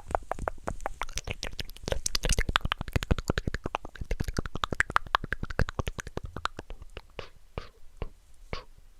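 ASMR mouth sounds close to the microphone: a rapid run of wet tongue and lip clicks, about ten a second in the middle, thinning out to scattered clicks near the end.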